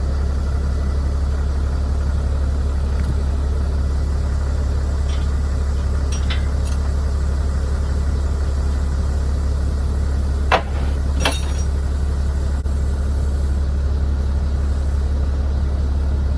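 The engine of a 1975 truck-mounted drill rig idling steadily just after starting, while the air-brake system builds pressure. Two short sharp clicks come about ten and eleven seconds in.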